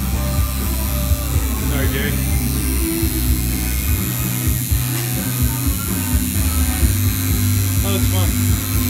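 Coil tattoo machine buzzing as the needle works on the skin of the chest. The low buzz breaks up and stutters for a couple of seconds about halfway through, then runs steadily again.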